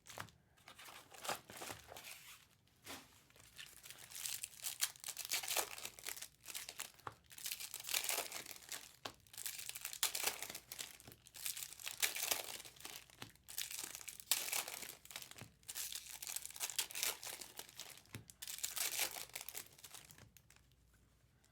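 Foil trading-card pack wrappers crinkling and tearing in repeated short bursts as packs are ripped open and handled.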